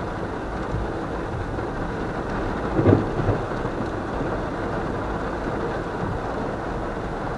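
Heavy rain on a moving car, heard from inside the cabin, an even steady rushing with the car's road noise underneath. A brief louder sound stands out about three seconds in.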